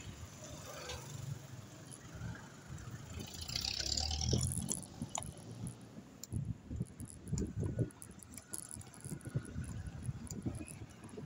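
A bike rattling and clattering as it is ridden over rough ground, with an uneven low rumble and scattered knocks, busiest in the second half.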